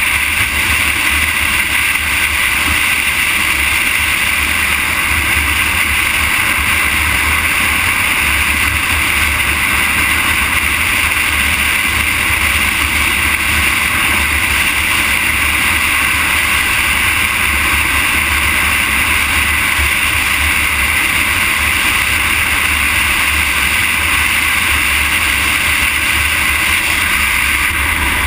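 Steady rush of wind and road noise picked up by a camera moving along an asphalt road, unchanging throughout.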